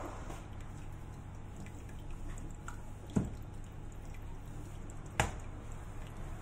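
Soft handling and rolling of cookie dough on a silicone baking mat, with two sharp knocks of a wooden rolling pin against the counter about three and five seconds in.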